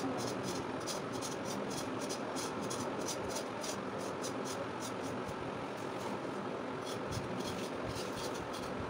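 Kitchen knife scraping the skin off a sponge gourd in quick repeated strokes, about three a second, over a steady background hum.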